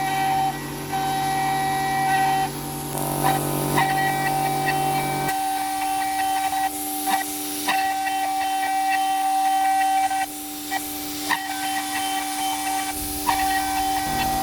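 CNC router milling a 6082 aluminium mold with a 6 mm two-flute ball-nose bit: the spindle gives a steady high whine, the axis motors give lower tones that shift about five seconds in and again near the end, and short clicks come through at intervals.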